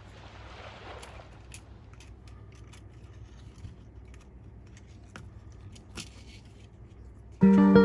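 Scattered light clicks, taps and small scrapes of small tools and phone parts being handled during a smartphone repair, over a low steady hum. Music with plucked guitar chords comes in near the end.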